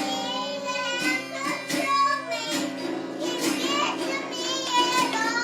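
Music with a high, childlike singing voice over steady held notes.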